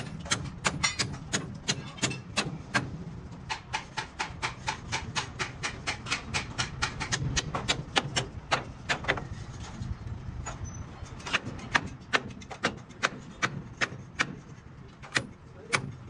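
Repeated metal-on-metal hammer blows on a truck's steel leaf spring, struck to drive out a stuck bolt. The blows fall several a second in a steady rhythm, with a short pause about ten seconds in.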